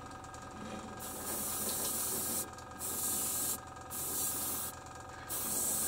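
Gravity-feed airbrush spraying paint in four short hissing bursts, each about half a second to a second and a half long, with brief pauses between them.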